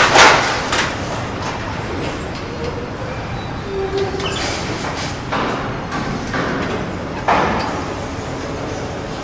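Metal factory ambience: a steady low rumble of industrial machinery with intermittent louder bursts of noise and clatter, one starting suddenly about seven seconds in.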